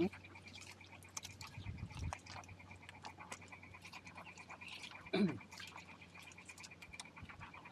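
A faint, steady, high-pitched pulsing animal chorus, with a short low call breaking in about five seconds in.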